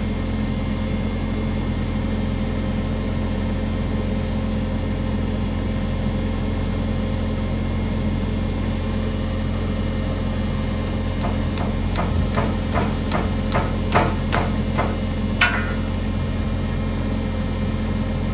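A steady low machine hum, like an engine or motor running, throughout. About eleven seconds in comes a run of about ten sharp knocks or taps, two or three a second, lasting some four seconds.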